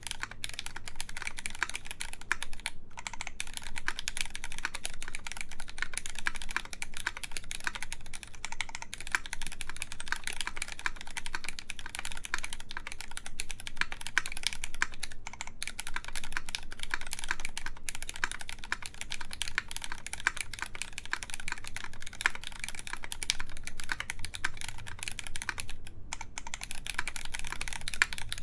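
Continuous fast typing on a KMAC Happy mechanical keyboard, its lubed Cherry MX Black Clear Top linear switches on a full aluminium plate under GMK keycaps. The typing pauses briefly about three seconds in, again near the middle, and near the end.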